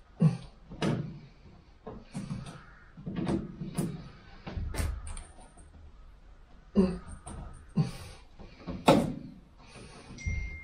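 Hand tool prying and scraping at the old, brittle rubber window seal of a VW T2 Bay camper van: a run of irregular clicks, knocks and short scrapes against the metal body and glass, the sharpest near the start and about nine seconds in.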